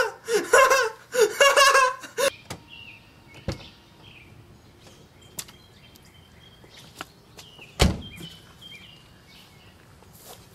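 A man laughing heartily for about two seconds. Then, out of doors, birds chirp, with a light knock and, about eight seconds in, a car door slamming shut.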